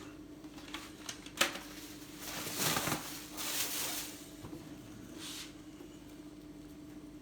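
Rustling and handling of stock being pulled from a box, in a few short rustling passes, with a sharp tap about a second and a half in, over a steady low hum.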